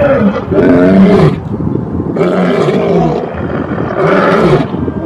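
Two male lions roaring together in a run of deep roars, each about a second long with short gaps between them.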